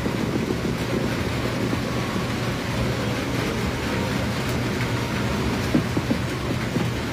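Dense fireworks barrage: a continuous low rumble of many overlapping bursts with crackling, without distinct separate bangs.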